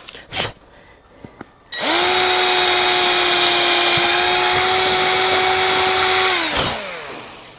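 Electric drill drilling a hole in the motorcycle's side cover for a switch mount: the motor whines at a steady speed for about four and a half seconds, then spins down with a falling pitch.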